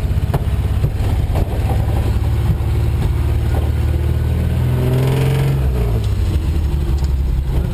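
1983 Ford Ranger's 2.8 L V6 engine running under load off-road, heard from inside the cab; it revs up from about four seconds in and drops back about a second and a half later.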